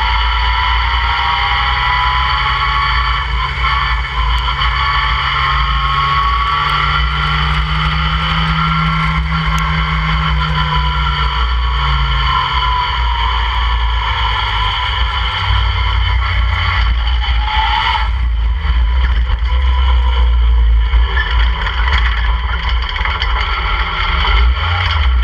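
Open-cockpit track car's engine running hard at speed, its pitch rising over the first few seconds and then holding, under a heavy low rumble of wind on the microphone. About three-quarters of the way through, the steady engine note breaks off and changes.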